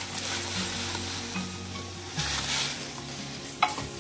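Vermicelli frying in hot ghee in a pan, sizzling as it is stirred, with a sharp clink against the pan near the end.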